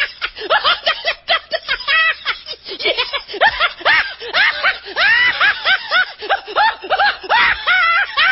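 High-pitched snickering laughter sound effect: a rapid string of short giggles, each rising and falling in pitch, several a second.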